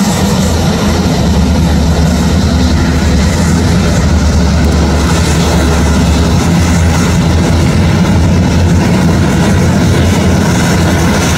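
Turboprop engine and propeller of an Embraer A-29 Super Tucano (Pratt & Whitney Canada PT6A) running as the aircraft taxis, a loud steady low drone.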